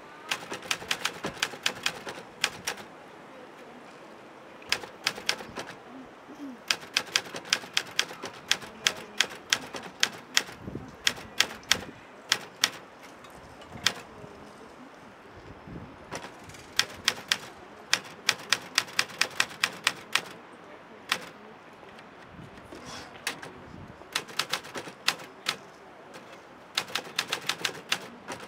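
Portable manual typewriter being typed on: quick runs of sharp key strikes, several a second, broken by pauses of a second or two between runs.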